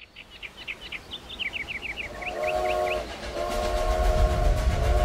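A steam locomotive whistle sounds a chord of steady tones: a short blast about two seconds in, then a long one from about three and a half seconds in, over a low rumble that grows louder. A string of short high chirps comes before it.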